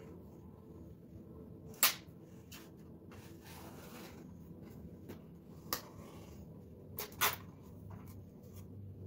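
A few sharp clicks and taps of plastic and tools being handled while a ThinkPad laptop is taken apart, over a low steady hum. The loudest click comes about two seconds in, and two come close together near seven seconds.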